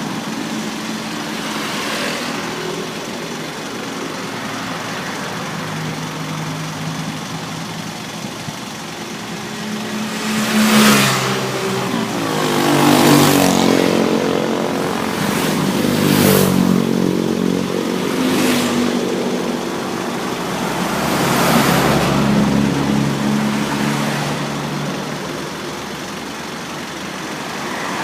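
Road traffic: motor vehicles pass by one after another, each swelling and fading within a second or two, over a steady engine hum.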